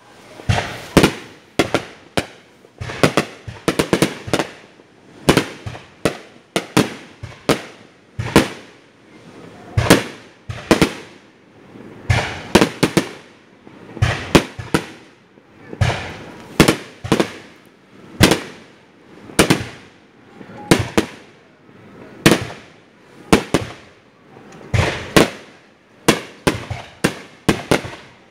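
Aerial fireworks display: shells bursting in quick, irregular succession, roughly one to two sharp bangs a second and often in clusters, each with a short echoing tail.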